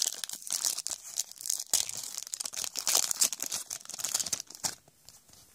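A foil trading-card pack wrapper being torn open and pulled apart by hand, crackling and crinkling with many small sharp crackles. It dies down near the end.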